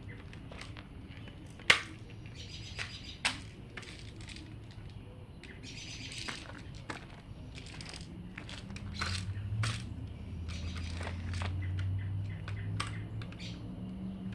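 Scattered handling clicks and knocks, the two sharpest about a second and a half apart near the start, with a brief hissy rustle about halfway through over a steady low hum.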